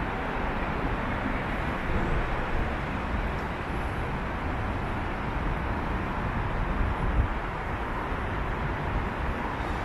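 Steady city ambience dominated by vehicle noise: a continuous low rumble and hiss with no single event standing out.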